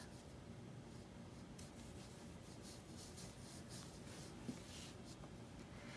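Faint, irregular rustling and rubbing of yarn and a metal crochet hook as single crochet stitches are worked, the hook pulling loops of yarn through the fabric.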